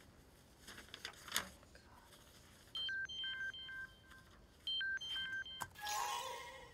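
Call ringing tone from a computer: two rounds of a repeating pattern of electronic beeps a second or so apart, with a soft knock before them.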